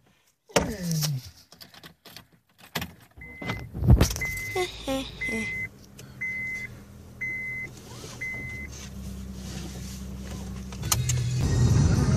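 Car clunks and clicks, then the engine starts about four seconds in and runs steadily while the car's warning chime beeps six times, evenly spaced. Near the end the engine gets louder as the car pulls away.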